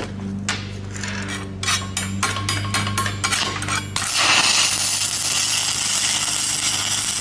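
Stick welding with a 7024 rod, laying a short tack weld: a few sharp clicks over a low hum as the rod is scratched against the plate, then about four seconds in the arc catches and runs with a steady crackling sizzle.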